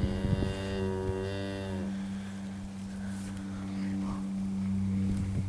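A heifer mooing: one long call that ends about two seconds in, over a steady low hum.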